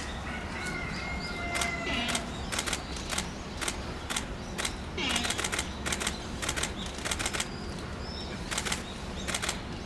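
Giant panda clawing at a surface: a long series of short, rasping scratch strokes coming in clusters. A thin high tone sounds in the first couple of seconds.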